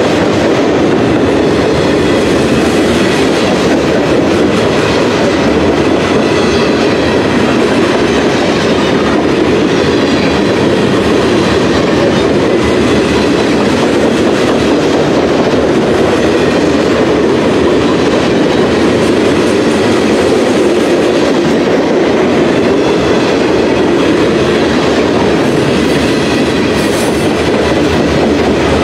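Freight train cars rolling slowly past close by: a steady rumble and clatter of steel wheels on the rails, with clickety-clack over the rail joints.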